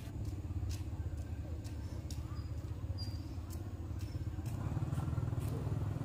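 A small engine running steadily, getting louder about four and a half seconds in, with scattered light clicks over it.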